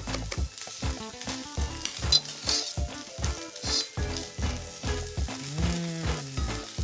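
Trout fillets sizzling skin-side down in a hot cast iron skillet, a steady frying hiss, under background music with a regular beat.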